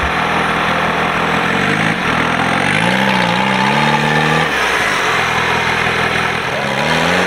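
Engine of a lifted off-road 4x4 revving under load as it crawls over a steep bank: the revs rise about a second and a half in, hold and waver, drop back about halfway through, and rise again near the end.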